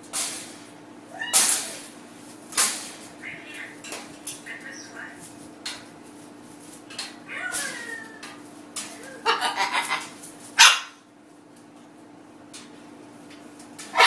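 Blue-and-gold macaw giving a run of short, harsh calls and chatter, a few with a wavering pitch and a quick string of them about two-thirds of the way in, over a steady low hum.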